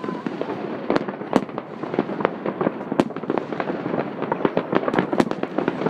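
Fireworks and firecrackers going off in many places at once: a dense, continuous run of bangs and cracks, with sharper, louder cracks standing out now and then.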